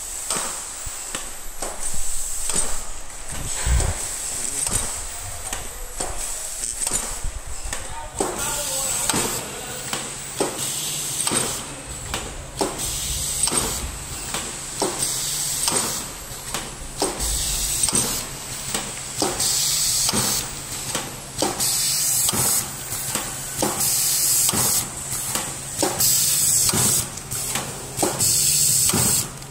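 Single-lane sachet packing machine running: an even clack about every 0.8 seconds from its cycling sealing and cutting jaws, over a steady hum that sets in about eight seconds in. In the second half, loud bursts of hissing air come and go.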